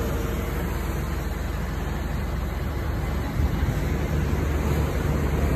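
Steady low drone of the boat's generator running below deck, with an even rush of noise over it. The low hum grows fuller a little past halfway.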